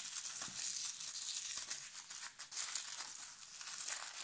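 Thin translucent wrapping crinkling and crackling as fingers unfold it, a dense run of small crackles without a break.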